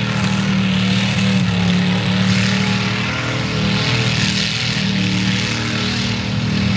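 Pickup truck's engine held at high revs as the truck churns through a mud-bog pit, running steadily with only brief small dips, over a hiss of spinning tires and flung dirt.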